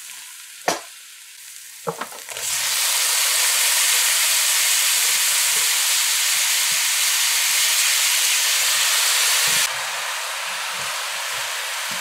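Diced pumpkin tipped into hot oil in a karahi, onto fried onions and scallions: two sharp clinks, then the oil breaks into a loud sizzle about two and a half seconds in. The sizzle drops suddenly to a lower, steady level near the end.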